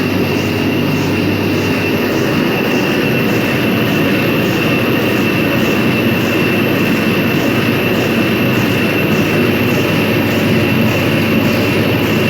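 Steady, loud machine noise with a constant high whine, unchanging throughout.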